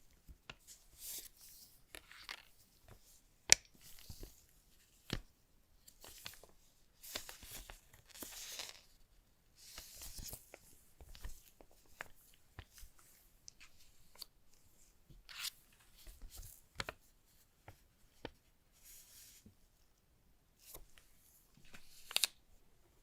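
Paper packaging of an iPhone box being torn and handled: a string of short tearing and rustling sounds with sharp clicks and taps, the loudest click about three and a half seconds in.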